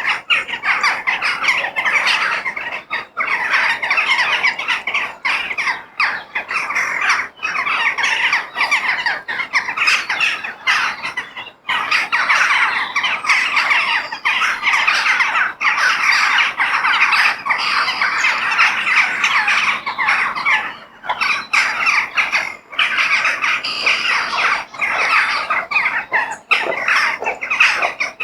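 A flock of crows cawing, many harsh calls overlapping almost without a break, with a few short lulls.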